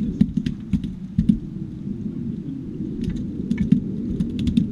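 Irregular sharp clicks and knocks of fishing tackle being handled on a small aluminium boat, over a steady low rumble.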